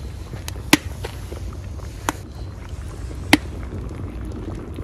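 Open wood fire burning under a hanging pot of soup, with three sharp crackling pops over a low steady rumble.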